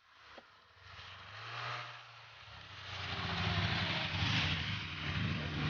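Vehicle engine running, growing louder over the first three seconds and then staying steady and loud, with a rushing noise over the engine note.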